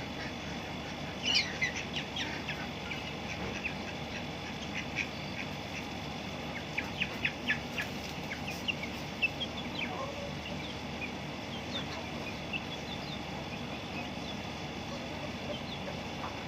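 Ducks quacking in short, quick calls. They come in bunches about a second in and again around seven to nine seconds in, over a steady background noise.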